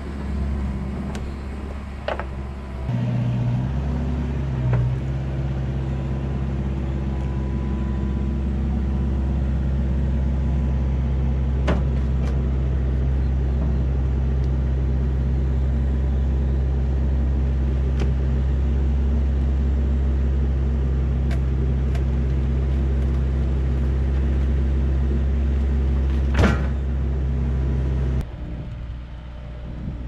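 Kubota KX121-3 mini excavator's diesel engine running steadily under load while loading logs. The engine picks up about three seconds in and eases off near the end, with three sharp knocks along the way.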